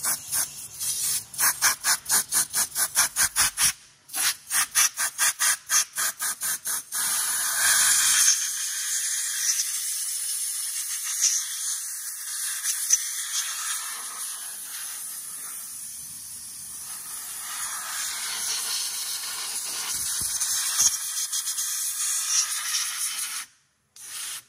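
Rapid regular clicking, about five clicks a second, for roughly seven seconds, then a long steady hiss that cuts off sharply near the end.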